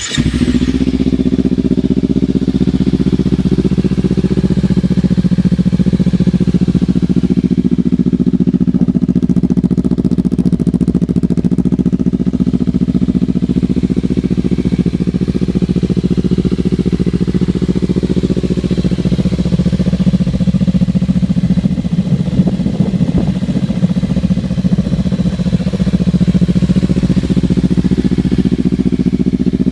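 2014 Kawasaki Ninja 300's parallel-twin engine, breathing through a Hotbodies MGP Growler slip-on exhaust, fires up at the very start and settles into a steady, loud idle.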